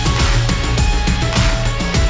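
Loud background music with a driving beat and dense, heavy instrumentation.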